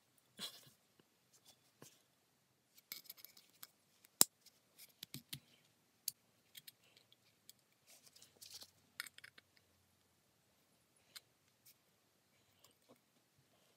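Metal parts of a paper hole punch being handled and fitted together by gloved hands: scattered light clicks, taps and scrapes as a small wire clip is worked onto the steel base, with one sharp metallic click about four seconds in.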